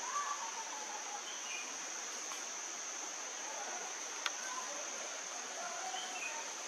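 Outdoor ambience dominated by a steady high-pitched insect drone, with faint distant voices and a single sharp click about four seconds in.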